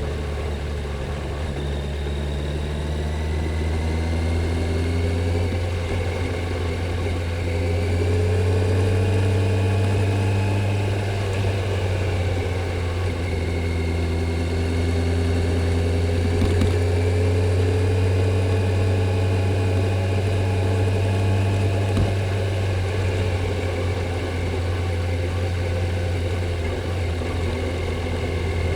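Stock Kawasaki Z900's inline-four engine and stock exhaust running under way at moderate, fairly steady revs, the pitch rising and easing gently a few times with small throttle changes.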